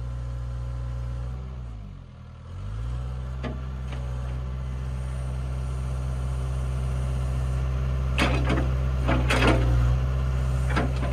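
Kubota mini excavator's diesel engine running steadily, dipping briefly in pitch and level about two seconds in, with a few sharp clanks from the bucket working the load.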